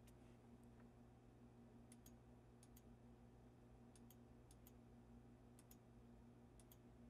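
Near silence: a faint steady electrical hum with scattered faint computer mouse clicks, most of them in quick pairs.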